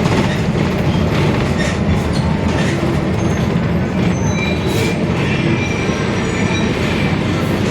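Mercedes-Benz OF-1721 diesel city bus running under way: a steady low drone with its rear differential growling, mixed with scattered rattles and clicks.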